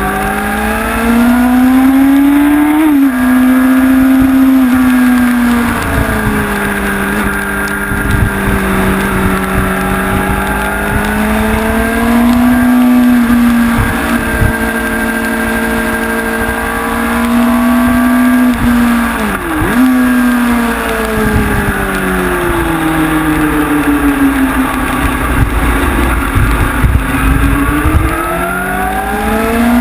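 Onboard sound of a Honda CBR sport bike's inline-four engine at racing speed, revving up and dropping back as the rider accelerates, shifts and brakes through the corners, with a few sharp drops in pitch at gear changes.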